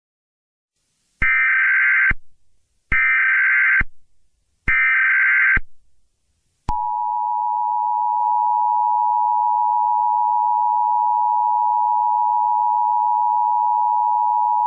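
Emergency Alert System broadcast opening: three short, evenly spaced bursts of SAME header data that encode the alert, then, about seven seconds in, the steady two-tone EAS attention signal begins and holds, announcing that an emergency message is about to be read.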